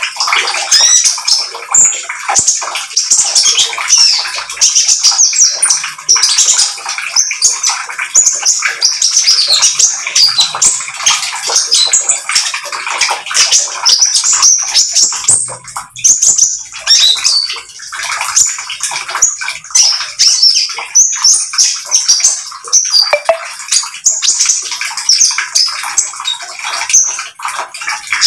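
Brown-throated sunbird (konin) singing its 'trotol' song: a long, almost unbroken run of rapid, high chattering notes.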